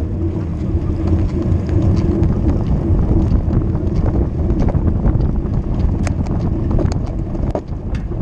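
Wind rumbling on the microphone of a camera riding along on a road bike, over road and tyre noise, with scattered sharp clicks and rattles.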